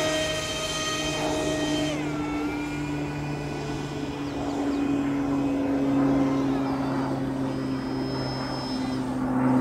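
Radio-controlled Me-262 Schwalbe scale model flying overhead, its engines giving a high whine with overtones that drops in pitch about two seconds in, while a lower tone slides slowly down.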